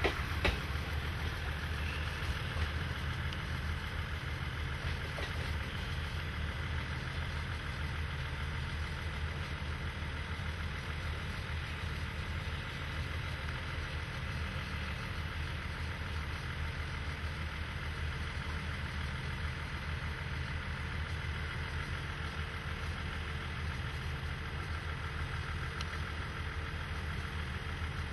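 DE10 diesel-hydraulic locomotive hauling 24-series coaches away: a steady low diesel engine rumble with the coaches' running noise, and a single sharp click about half a second in.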